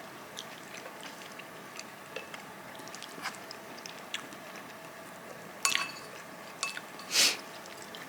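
Quiet eating at a table: small scattered clicks, then a couple of brief ringing clinks of tableware and a short scrape about seven seconds in.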